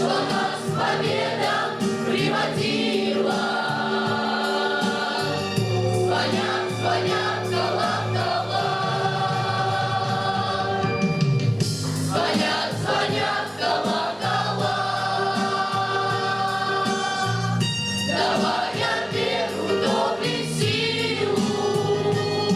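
A school cadet choir singing a song together in sustained, held notes.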